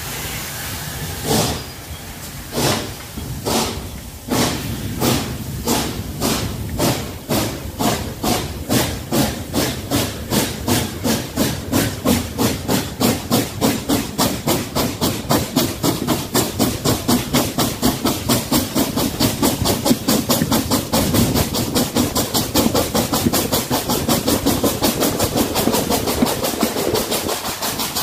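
USATC S160 2-8-0 steam locomotive pulling away from a standstill: its exhaust beats start slow and widely spaced and quicken steadily to several a second as the train gathers speed.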